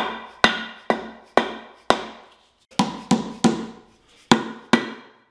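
A mallet rapping the aluminium intake manifold of a Chevy 350 small-block, about a dozen sharp blows at two to three a second, each ringing briefly, with a short pause a little before halfway. The taps are breaking the manifold free of the silicone sealant that holds it to the block.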